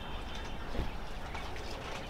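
Small birds chirping over a steady low rumble of outdoor background.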